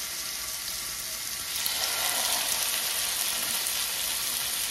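Marinated chicken breast fillets sizzling in hot oil in a grill pan, a steady hiss that grows louder about a second and a half in as a second piece is laid in.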